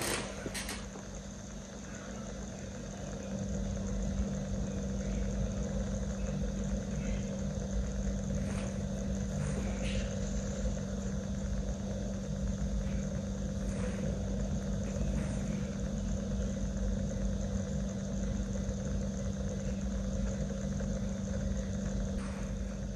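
A steady low machine hum with a deep rumble underneath that grows louder about three seconds in and then holds, with a few faint ticks.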